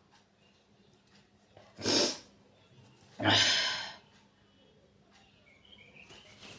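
A woman sneezing hard twice, about a second and a half apart, the second sneeze longer. The sneezes are deliberately provoked with pepper powder and a cotton bud in the nose.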